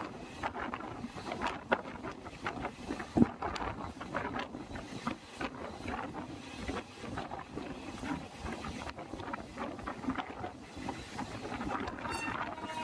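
Passenger train running on the track, its wheels clattering and knocking irregularly over the rails, with a sharp knock about three seconds in and a brief high-pitched tone near the end.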